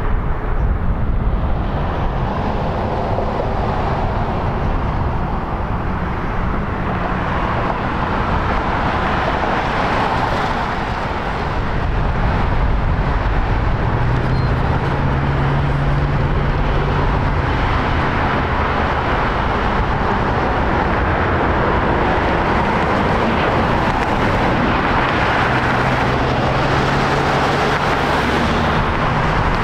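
Steady rumble of airliner jet engines on the ground. From about twelve seconds in, an Airbus A340-300 taxiing in after landing with its four engines at low power, a low hum rising and falling in the second half.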